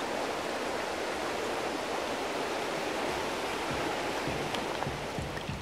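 Stream water rushing steadily, with a few faint low knocks in the second half as the sound starts to fade.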